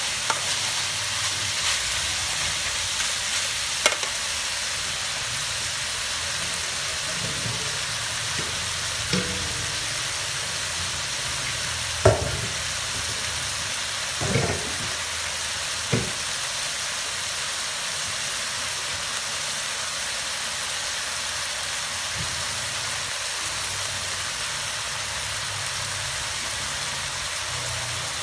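Chicken with shredded lemongrass and citrus leaves sizzling steadily as it stir-fries in a metal wok. A metal ladle knocks against the pan a few times in the first half, sharpest about twelve seconds in.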